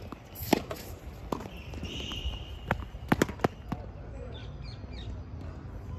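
Tennis balls struck by racquets and bouncing on a hard court during a rally: a series of sharp pops, with a quick run of three or four a little under halfway through.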